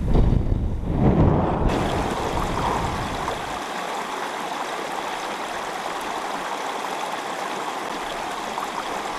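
Wind buffeting the microphone for the first couple of seconds, then the steady sound of a small stream's running water.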